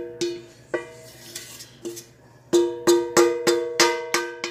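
Stainless steel skillet ringing as a wooden spoon knocks and scrapes sautéed celery and onion out of it. There are a few separate knocks, then a quick run of about seven in the second half, each ringing briefly on the same metallic pitches.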